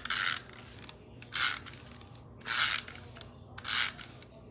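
Four short hissing scrapes of paper about a second apart, paper being rubbed or drawn across a crafting surface or tool.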